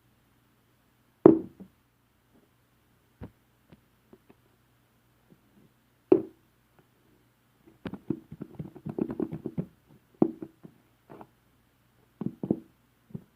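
Sticky, fluffy slime being pressed and poked by hand: a few sharp pops, then a run of quick crackling clicks, then more pops.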